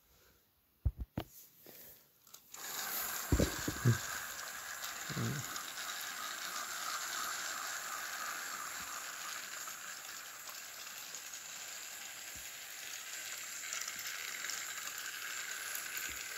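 Battery-powered toy train engine running steadily along plastic track, starting about two and a half seconds in after a few clicks. A couple of low thumps come soon after it starts.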